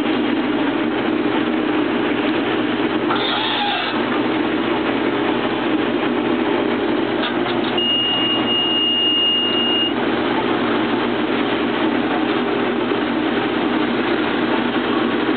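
Case IH 2388 combine running steadily while shelling corn with a 1083 corn head, heard from inside the cab as a constant machine drone. A brief higher sound comes about three seconds in, and a thin high steady tone, like a beep, sounds for about two seconds about halfway through.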